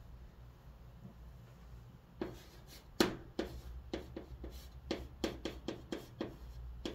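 Chalk writing on a chalkboard: quiet for about two seconds, then a run of short taps and scrapes as the letters are written stroke by stroke, the sharpest tap about three seconds in.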